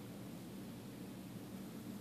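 Quiet room tone: a steady low hum under a faint even hiss, with no distinct sound events.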